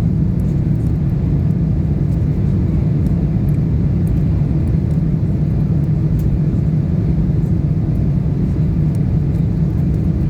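Steady low drone of an airliner in flight or on its departure run, with no rise or fall.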